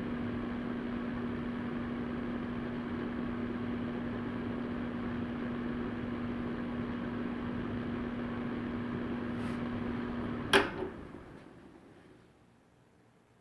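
Vornado VMH300-KR electric fan heater blowing air steadily with a constant hum. About ten seconds in a sharp click cuts the hum, and the airflow dies away over a couple of seconds as the fan spins down: the heater being switched off.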